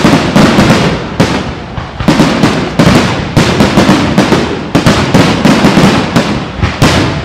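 Aerial firework shells bursting in a rapid barrage: loud, sharp bangs, several a second, overlapping one another.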